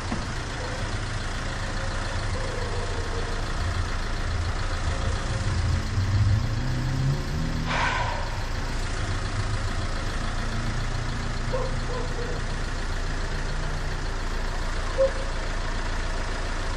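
Van engine idling steadily, with a short louder swell about six to eight seconds in.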